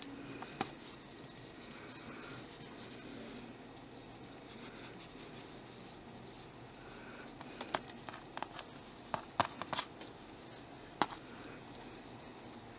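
Fingers rubbing and handling a polymer clay sculpture, a faint scratchy rustle as pigment powder is worked onto the clay, with several light clicks in the second half.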